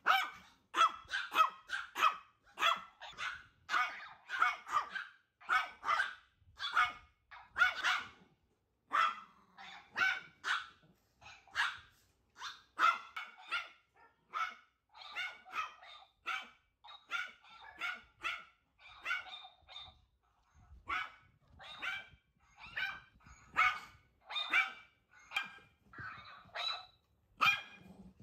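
Long-coat chihuahuas barking, a fast run of short high yaps two or three a second, with a brief lull about twenty seconds in.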